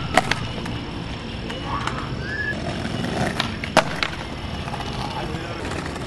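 Skateboard wheels rolling on paving stones, with sharp wooden clacks of the board landing flatground tricks: two just after the start and two more at about three and a half to four seconds.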